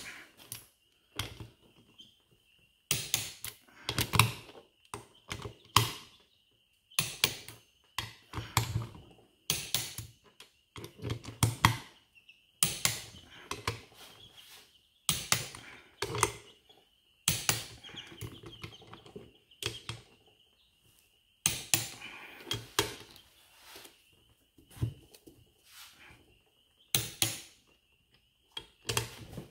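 Click-type torque wrench ratcheting and clicking on the bolts of a hydrostatic transmission case, the bolts being checked to torque one after another. The clicks come in short bursts every second or two.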